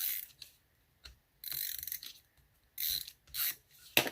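Paper and sticker sheets being handled and peeled in planner crafting: several short crackly rasps, then a sharp click near the end.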